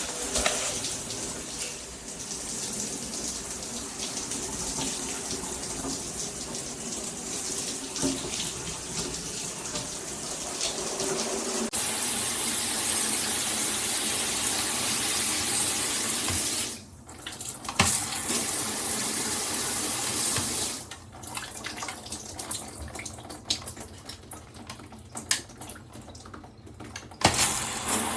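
Water spraying from a Cobbe handheld shower head. The spray changes character about twelve seconds in and cuts out briefly twice, the second time for several seconds with scattered drips and knocks, before running again near the end.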